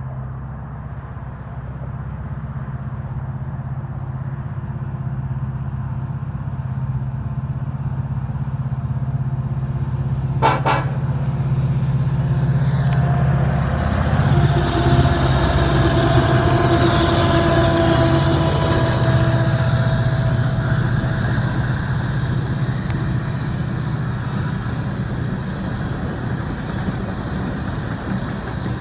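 Diesel locomotives of a BNSF coal train, led by an EMD SD70ACe, approaching with a steady engine drone that grows louder toward the middle. A brief clicking rattle comes about ten seconds in. The lead locomotive then sounds its air horn as one long chord held for about seven seconds.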